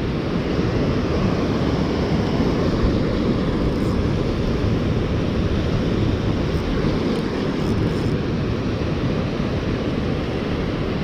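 Steady rumble of wind buffeting the microphone, mixed with ocean surf.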